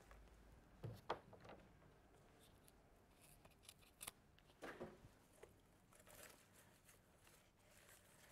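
Mostly near silence, with a few faint snips, clicks and rustles as flower stems are cut and handled.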